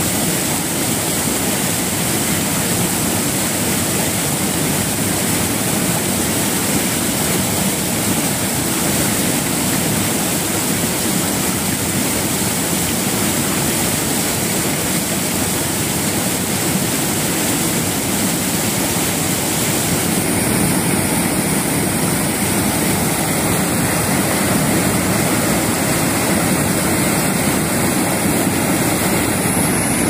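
River water pouring over a low, wide waterfall ledge into churning white water: a loud, steady rush.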